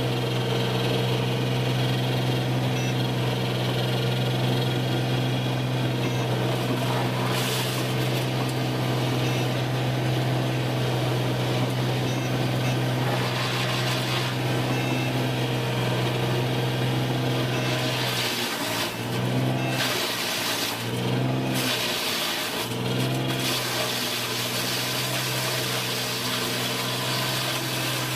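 Machinery running with a steady hum, with a few surges and dips in the noise between about 18 and 23 seconds in.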